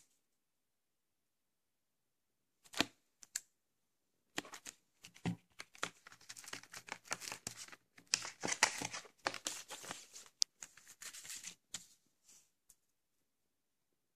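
Crinkling and rustling of cellophane shrink-wrap being handled, an irregular run of crackles that starts about a third of the way in and dies away near the end, after a few sharp clicks.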